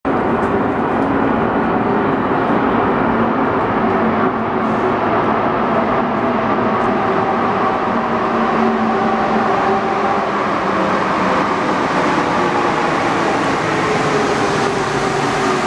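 Alstom NS-74 rubber-tyred metro train approaching through the tunnel and running into the station: a steady, loud rumble with several whining tones from its running gear. One tone starts to fall near the end as the train slows along the platform.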